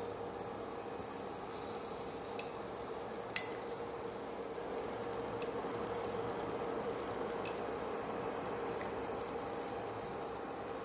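A pan heating on an induction cooktop gives a steady hum with a soft sizzling hiss. A steel spoon clinks sharply against the pan about a third of the way in, with a few fainter taps as cheese is spread onto the rotis.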